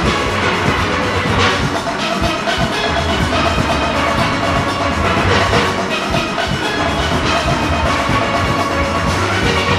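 A large steel orchestra playing at full strength: many steelpans ringing together in a fast, dense arrangement over drums and percussion.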